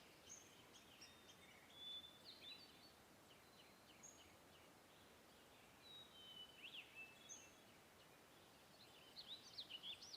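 Faint birds chirping: short high chirps and quick whistled sweeps, scattered through and busier near the end.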